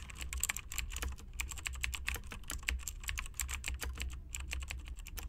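Typing on a computer keyboard: rapid, irregular key clicks over a low steady hum.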